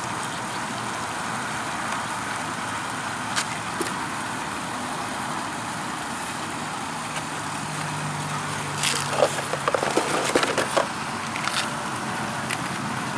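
Small clicks and knocks of hands handling a plastic RC boat hull, a few early on and a busier cluster about nine to eleven seconds in, over steady background noise.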